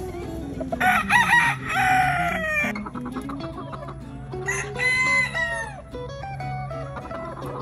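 Gamefowl rooster crowing twice: a long crow about a second in that falls away at the end, and a shorter crow about two seconds later. Background guitar music plays underneath.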